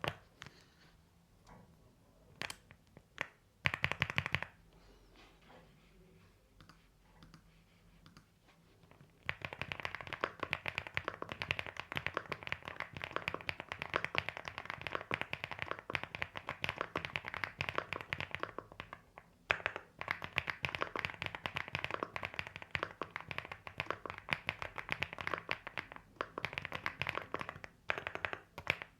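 LEOBOG Hi8 mechanical keyboard with an FR4 plate and Xinmeng Dark Plum switches being typed on. A few scattered keystrokes come first, then fast continuous typing starts about a third of the way in, with a brief pause around two-thirds through.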